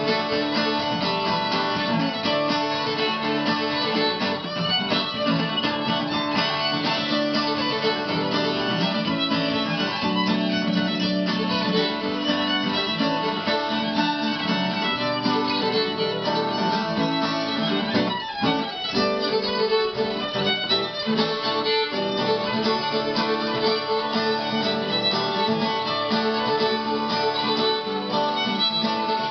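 Irish reels played on fiddle over strummed acoustic guitar, an even, unbroken dance rhythm.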